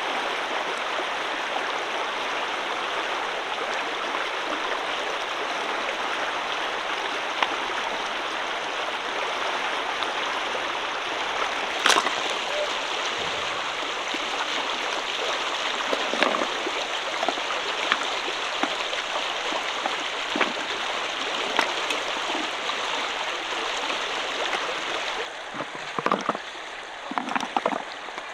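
Shallow river water running steadily, with a few short knocks and splashes. Near the end the water sound drops and several sharper knocks come close together.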